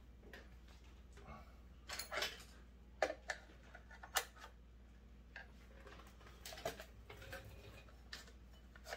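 Scattered light metallic clicks and taps of a screwdriver and small hand tool working on a Stihl TS 350 Super cut-off saw, coming irregularly over a low hum.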